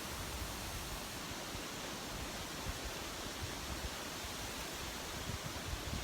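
Wind blowing steadily through the trees, an even hiss of rustling leaves, with a few low gusts buffeting the microphone near the end.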